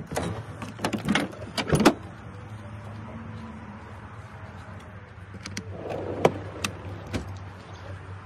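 A pickup canopy's rear door latch clicks open and the hatch lifts, with a few sharp knocks in the first two seconds. About six seconds in, a bed drawer rolls out on its runners and stops with a clunk.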